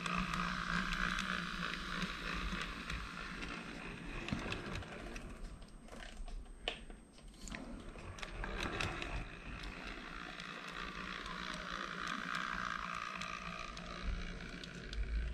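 Running noise of a Minitrix N-scale V 162 model diesel locomotive: a mechanical whirr with rattling clicks, running somewhat rough. It is loud as the locomotive passes at the start, fades about five seconds in, and swells again as it comes round about eleven seconds in.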